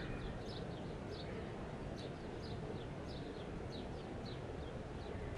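A bird chirping over and over, short high falling chirps about three a second, over a steady low rumble of background noise.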